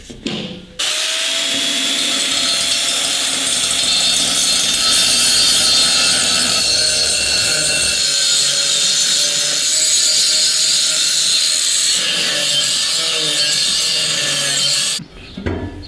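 Angle grinder grinding the inside lip of a steel irrigation pipe smooth, metal on metal. It starts abruptly about a second in, runs loud and steady, and cuts off shortly before the end.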